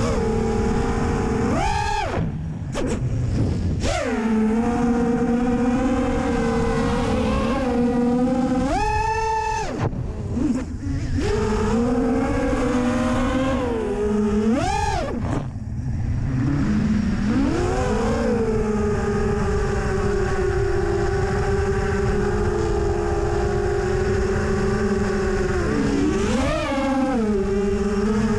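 FPV freestyle quadcopter's brushless motors and propellers buzzing steadily, with the pitch swooping sharply up and back down on throttle punches about two seconds in, around nine, fifteen and eighteen seconds, and again near the end, over a low rumble.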